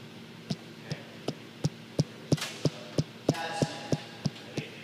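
A basketball being dribbled on a hardwood gym floor: steady, even bounces about three times a second, each a short low thud.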